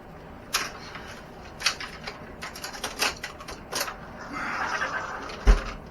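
Unboxing handling noises: a run of clicks and light knocks, a scraping rustle about four and a half seconds in, then a heavy thump near the end.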